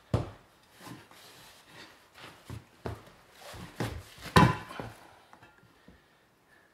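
Irregular knocks and thumps of a tire being handled and worked onto a wheel by hand, the loudest about four and a half seconds in.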